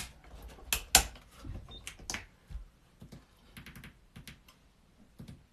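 A run of irregular sharp clicks and taps of buttons being pressed: two loud clicks about a second apart near the start, then a scatter of lighter ones.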